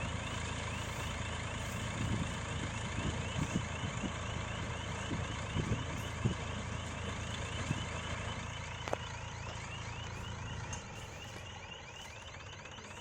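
Straw baler and its tractor running: a steady engine hum with irregular dull thumps, and a fast repeating squeaky chirp at about four a second. The sound drops off somewhat near the end.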